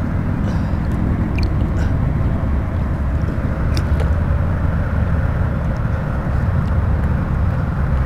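Steady low rumble of outdoor background noise, with a few faint short ticks.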